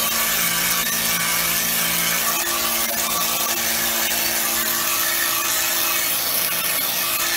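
Pressure washer running steadily, its water jet hissing against a painted canvas over a steady motor hum.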